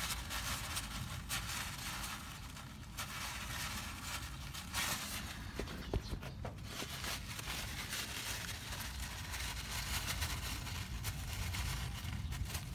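Rustling and handling noise of a phone being moved around, with scattered small clicks and knocks over a steady low rumble; one sharper click about six seconds in.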